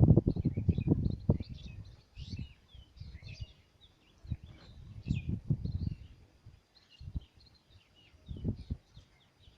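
Small birds chirping and twittering in quick, scattered calls. Irregular low rumbling bursts come and go under them several times and are the loudest thing.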